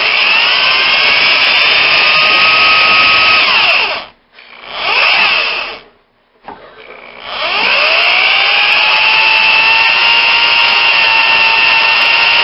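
Handheld drill boring through a spot weld in a steel car frame rail, its motor whining under load. It stops about four seconds in, runs again briefly, then spins back up with a rising whine and runs steadily.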